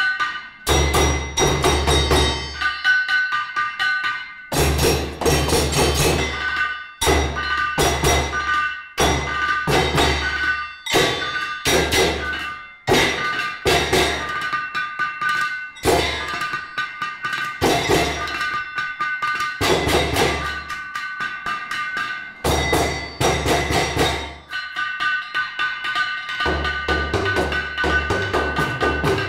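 Percussion ensemble playing on old hammers, tools and other materials: a fast, steady rhythm of struck knocks with ringing tones held under them and a deep low hit sounding in stretches of a second or two.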